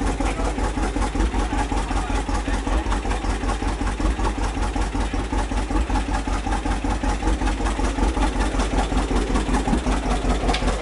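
Vintage John Deere two-cylinder tractor engine idling with a steady, even pulsing beat of several pulses a second.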